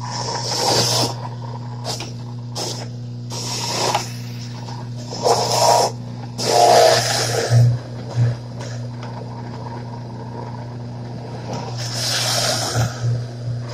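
A Champion masticating juicer running with a steady motor hum, grinding vegetables in repeated loud bursts as they are pushed down the feed chute with the plunger.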